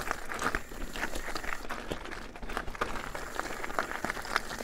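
Steel hardtail mountain bike rolling over a loose rock and gravel trail: steady tyre noise on the stones, broken by many short clicks and knocks as the bike goes over the rocks.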